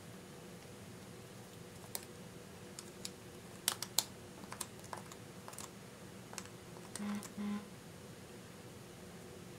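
Irregular light clicks and taps of a plastic lipstick tube being handled while the lipstick is scraped out of it, with two short scraping sounds about seven seconds in.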